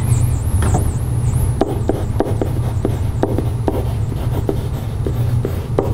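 Pen writing on a whiteboard: a wavering high squeak in the first two seconds, then a run of short clicks and taps as letters are written, over a steady low hum.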